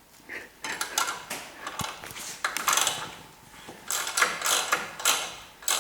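Ratchet wrench clicking in short repeated runs, about one stroke a second. It is turning a nut down a 3/8-inch threaded rod to let a front coil spring down slowly.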